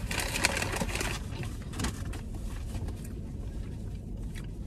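Close-up eating sounds: chewing with a crackly rustle of paper food wrappers and a plastic takeout tray, busiest in the first second, over a steady low rumble inside the car.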